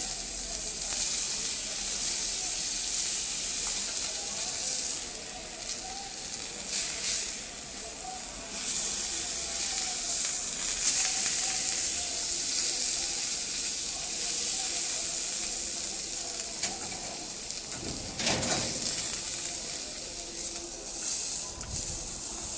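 Whole fish sizzling on an electric grill pan, a steady high hiss of cooking, with a couple of brief knocks near the end as the fish is handled.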